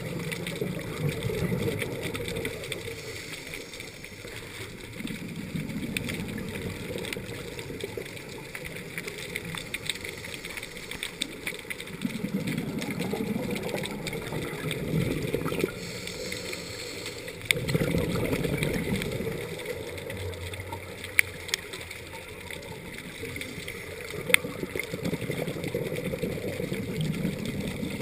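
Scuba diver breathing through a regulator underwater: bubbly exhalations swell and fade every few seconds, with a few sharp clicks in between.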